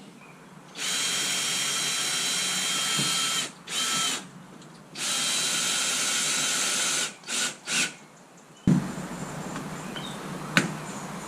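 Power drill running in on-off bursts: a run of about two and a half seconds, a short one, another of about two seconds, then two quick blips. After that comes a lower steady background with a single sharp click.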